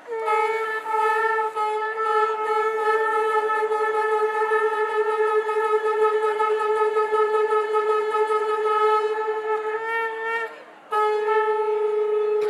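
Conch shells (shankh) blown in one long steady note of about ten seconds, which breaks off briefly near the end before a second blast begins.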